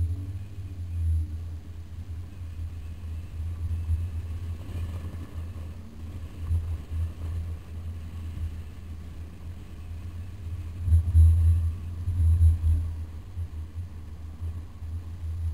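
Low, uneven rumble of a moving car heard from an action camera mounted on the outside of the body: road noise and wind buffeting on the microphone. It swells loudest about two-thirds of the way through.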